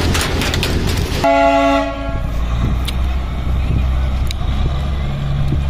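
Darjeeling Himalayan Railway toy train's horn sounds one short, steady blast of under a second, about a second in. Before it there is a rushing noise with clicks, and after it a low engine hum.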